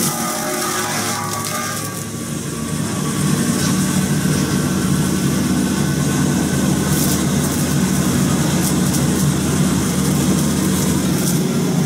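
Excavator running its hydraulic rotary cutter attachment: a steady low engine drone, with short bursts of hiss about seven seconds in and near the end.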